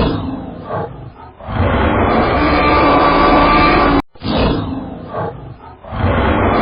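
Loud call of a large animal, heard twice: each begins with a sudden burst that trails off, then swells into a long, sustained blaring call that cuts off abruptly.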